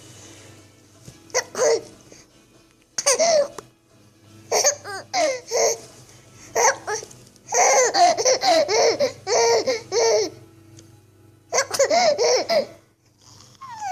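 A baby laughing in about six bursts of giggles with short pauses between them; the longest fit runs about two and a half seconds, a little past the middle.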